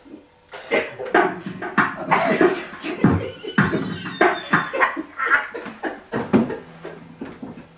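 People laughing in short, repeated bursts.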